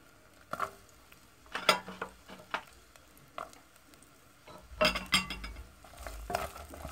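Sliced red onions frying in oil in an aluminium pot with a light sizzle, broken by scattered knocks. About five seconds in comes a busier clatter as more onions go in and a wooden spoon stirs them against the pot.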